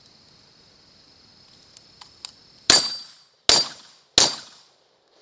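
Three sharp gunshots in quick succession, about 0.7 s apart, each with a short ringing tail. Before them is a steady high chirring of crickets and a few light clicks.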